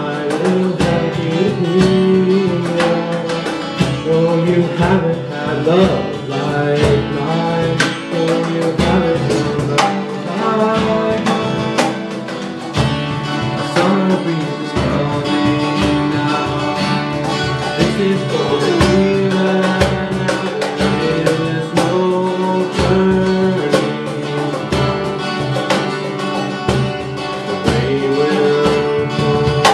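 Live acoustic band playing a country-folk song: two acoustic guitars being played, a cajon keeping a steady beat, and a male voice singing.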